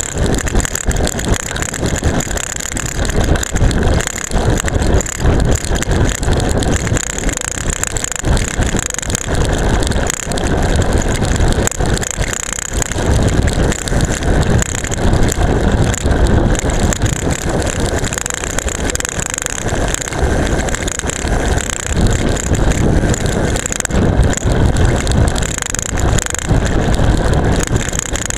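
A camera strapped to a road bike's seatpost rattling hard and continuously as the bike descends at speed, over a steady rush of wind and road noise.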